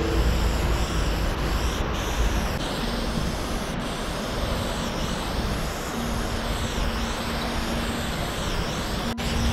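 Aerosol spray paint can hissing steadily as paint is laid on in long strokes, with a short break about nine seconds in.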